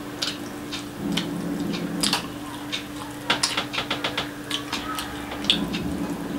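Close-miked sounds of eating rice and curry by hand: fingers mixing fried rice and gravy on a ceramic plate, giving quick wet clicks and squelches that come thickest about halfway through, over a steady low hum.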